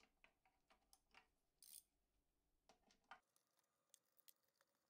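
Near silence, broken by faint, irregularly spaced clicks and ticks of a wrench working the bolts on an inverter's aluminium case, with one slightly longer scrape.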